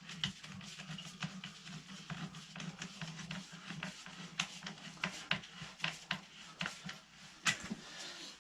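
Scattered light clicks and taps of hand work on a sump pump check valve and its fittings, irregular and several a second, over a faint steady low hum.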